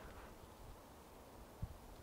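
Near silence: a faint low rumble, with one short soft thump about one and a half seconds in.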